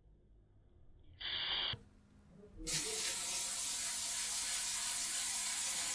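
Aerosol heat-protectant spray hissing from the can onto hair: a brief spurt about a second in, then one long continuous spray from just before three seconds in.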